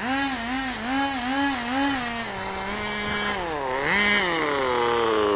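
Nitro RC car's small two-stroke glow engine revving up and down in quick throttle blips, about two a second, then running at a steadier pitch, rising once more about four seconds in and falling away near the end as the throttle is let off.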